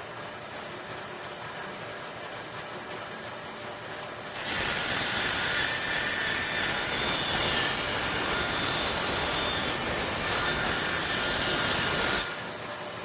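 Bandsaw running, its blade cutting through a wooden board from about four seconds in until near the end, louder and with a high whine while it cuts, then running free again.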